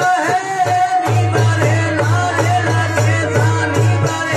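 Marwari devotional bhajan: a man singing long, wavering held notes over the Marwari veena, with a steady percussion beat that settles into a regular pulse about a second in.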